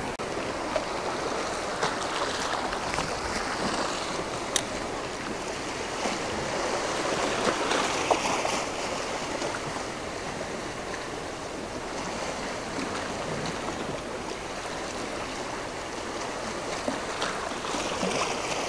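Sea waves washing steadily against a rocky shore, swelling a little in the middle, with a single sharp click about four and a half seconds in.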